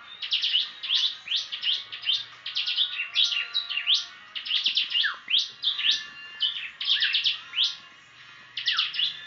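A prinia (prenjak) singing vigorously: rapid runs of sharp, high chirps in quick bursts, with a short lull near the end.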